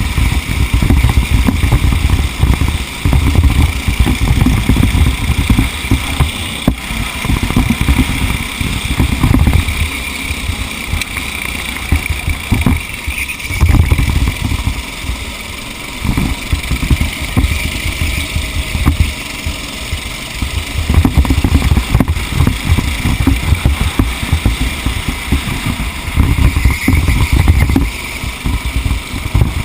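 A racing vehicle's engine running at speed, heard on board, with heavy surging rumble from wind buffeting the microphone.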